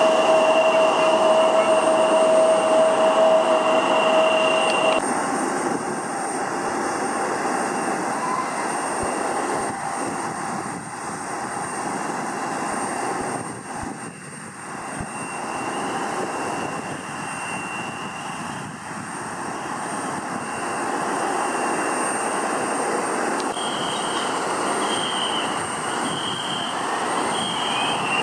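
Embraer 175 regional jet's turbofan engines running at taxi power, a steady roar with a high whine. The whine changes abruptly about five seconds in and rises in pitch near the end.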